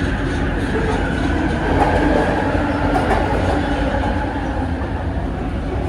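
Bombardier Innovia ART 200 metro car running, heard from inside the car: a loud, steady rumble with a whine at several steady pitches from its linear induction motor drive.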